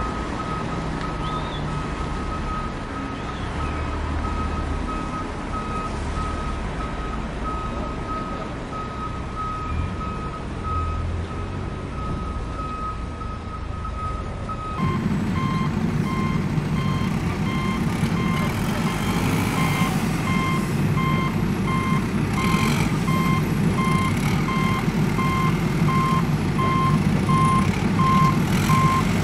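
A vehicle reversing alarm beeping in a steady, even rhythm. About halfway through the sound changes: the beep drops slightly in pitch and a low rumble comes in under it.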